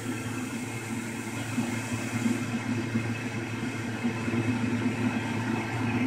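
Boat blower in a homemade cooler air conditioner running steadily: a continuous motor hum with a rush of moving air.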